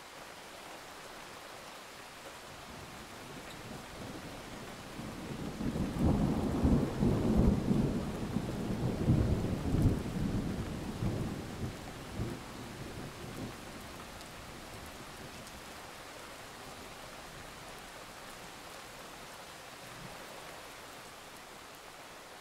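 A long roll of thunder over steady rain: the rumble builds about four seconds in, is loudest for several seconds, and fades out by about thirteen seconds, with the rain hiss carrying on.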